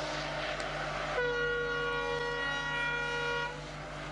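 Indian Railways EMD diesel locomotive's air horn sounding one long blast of several tones at once, starting about a second in and cutting off after a little over two seconds, over a low steady hum.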